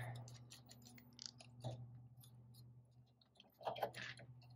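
Faint clicks and taps of metal fuel lines and fittings being worked by hand at a diesel injection pump, with a louder cluster of clicks near the end, over a low steady hum.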